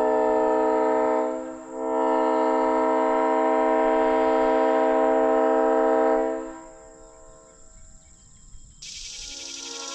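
Leslie Supertyfon SU3L three-chime air horn with an aluminum manifold sounding a steady chord: a blast that dips briefly about a second and a half in, then a long second blast that fades out about six seconds in. Music starts near the end.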